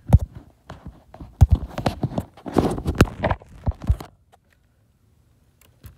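Handling noise of a phone being carried and turned by hand: irregular knocks, thumps and rustling of cloth. About four seconds in it goes quiet, and a few faint clicks come near the end.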